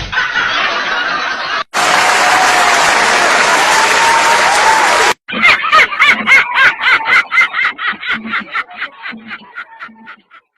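A burst of loud, even noise for about three seconds cuts off abruptly, then a run of quick, rhythmic laughter, about five pulses a second, fades away.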